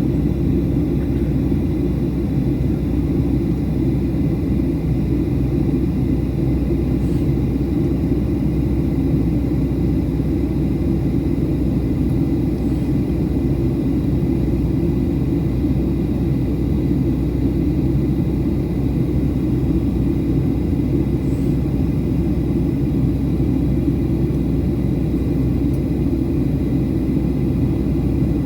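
Steady in-flight cabin noise of a Boeing 737-800: an even low rumble of airflow and its CFM56 engines, with a faint steady high whine.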